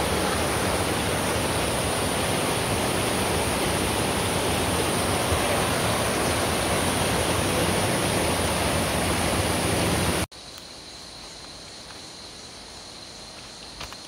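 Loud, steady rush of a shallow rocky mountain stream running over rapids. It cuts off abruptly about ten seconds in, leaving a much quieter background with a faint, steady high-pitched hum.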